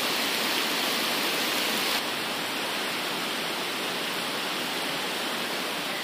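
Heavy rain pouring down as a steady hiss, a little louder for the first two seconds.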